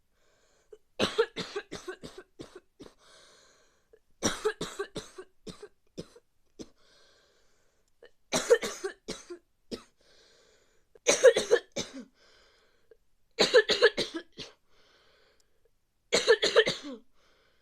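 A person coughing from a bad cold in repeated fits: six bouts a few seconds apart, each a quick run of several sharp coughs, with a quieter breath drawn after each.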